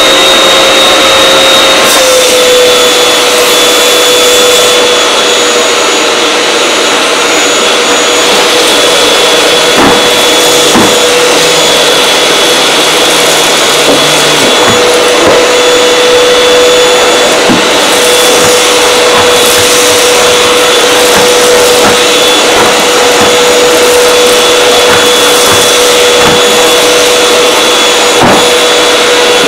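Canister vacuum cleaner running steadily with a motor whine, its nozzle being pushed over carpet. The whine drops slightly in pitch about two seconds in, and there are a few light knocks.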